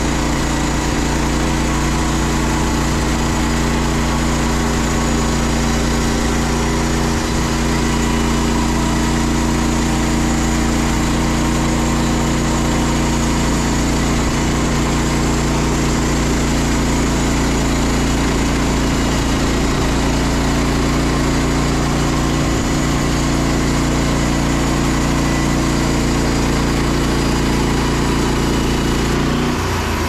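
Frontier OS27 portable bandsaw mill running at a steady pitch with its band blade sawing through a log as the head is pushed along. The tone shifts and drops slightly just before the end, as the head reaches the end of the log.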